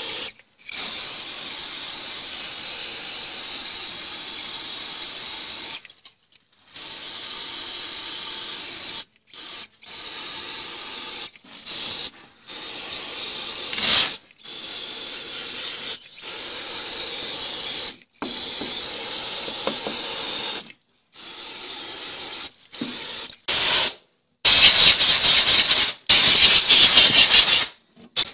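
A steady jet of gas or air hissing from a hose nozzle, in stretches of a few seconds broken by abrupt silent gaps, loudest near the end.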